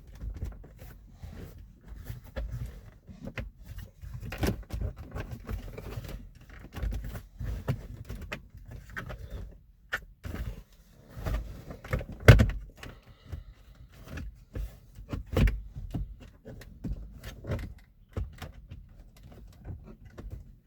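Plastic center console cover of a car's interior being lifted and worked loose by hand: scattered clicks, knocks and rattles of plastic trim, with the sharpest snap about twelve seconds in.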